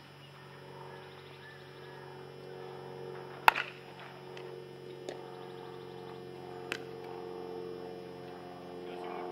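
Steady electrical hum, with a single sharp crack of a bat striking a baseball about a third of the way in, the loudest sound, then two fainter clicks.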